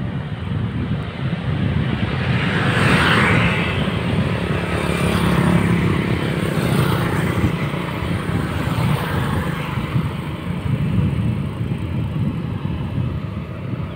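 Road traffic with motorcycles passing, heard from a moving bicycle over a steady low rumble. A vehicle swells past about three seconds in, and another goes by around six seconds.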